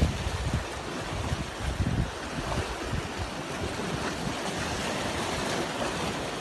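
Small sea waves washing and splashing over rocky boulders at the water's edge, with gusts of wind buffeting the microphone, strongest near the start and about two seconds in.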